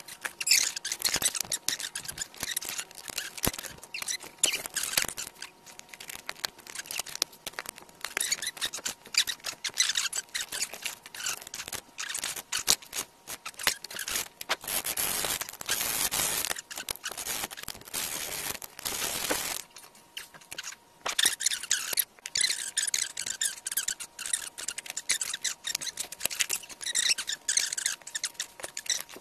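Sharpening sounds played back many times faster than real time: rapid, choppy scraping of hones along a Ken Onion Storm's steel blade, mixed with high, squeaky chipmunk-like sounds from the sped-up audio.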